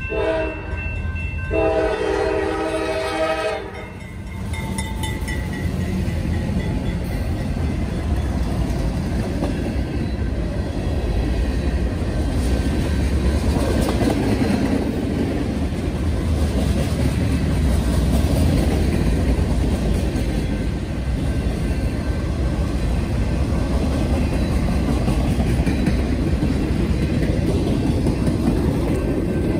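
CSX diesel freight train at a grade crossing: the locomotive horn sounds two blasts, the second longer, ending about three and a half seconds in. Then the locomotives and freight cars roll past with a steady low rumble and clatter of wheels on the rails, and the crossing bell rings faintly behind it.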